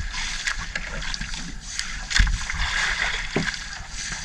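Gillnet being hauled by hand over the side of a boat: water splashing and dripping off the mesh, with several short knocks against the hull, the loudest about two seconds in.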